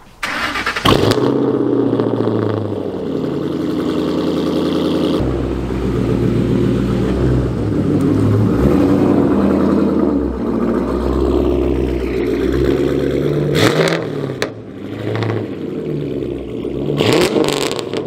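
A 2006 Ford Mustang GT's 4.6-litre V8 starts up about a second in and runs loud through its exhaust, with a few revs as the car is driven slowly into a driveway.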